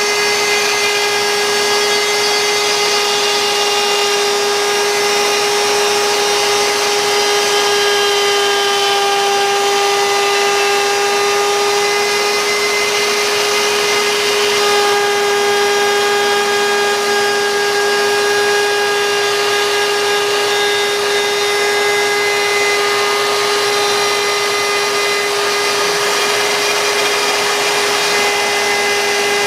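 CNC router spindle running at a steady high speed while cutting wood, a constant whine with no pauses.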